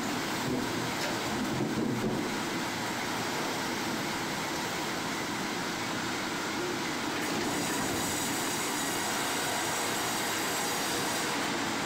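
Sawmill machinery running: a steady mechanical clatter and hiss, with a faint high whine coming in about seven seconds in.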